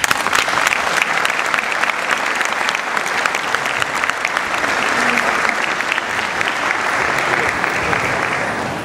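Audience applauding: a dense, steady clapping that dies away near the end.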